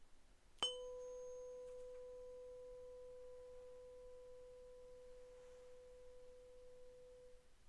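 Tuning fork struck once, a sharp tap about half a second in, then a single pure, steady tone that slowly fades away over about seven seconds.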